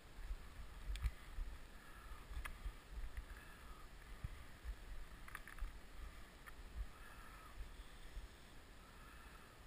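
Wind buffeting a head-mounted camera's microphone in uneven gusts, over the faint steady wash of a river. A few sharp clicks stand out, about four of them.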